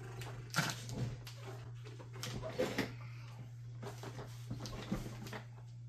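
Computer fan-cable connectors and wires being handled and pushed together, giving scattered light plastic clicks and rustles over a steady low hum.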